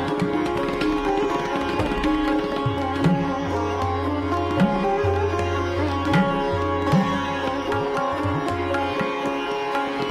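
Background music in Indian classical style: a plucked sitar over a steady drone, with tabla strokes whose low bass notes bend in pitch.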